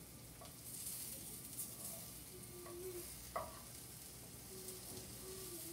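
Banana pancake batter sizzling in a frying pan as a spatula works it. The sizzle picks up about a second in, and there is one sharp tap of the spatula on the pan about three and a half seconds in.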